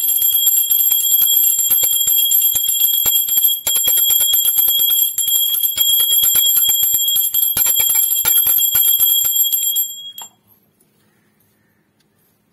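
Hand-held puja bell rung rapidly and without a break for the aarti, the clapper striking many times a second over a steady high ring. It stops abruptly about ten seconds in.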